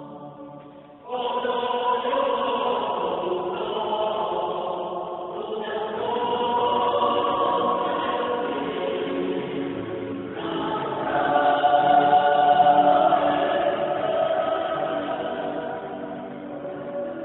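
Mixed choir of men's and women's voices singing sustained chords. The singing is soft for the first second, then the full choir comes in, with new phrases starting around six and ten seconds in.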